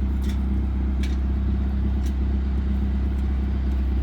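A machine running with a steady low hum, unchanging throughout, with a few faint clicks about a second apart.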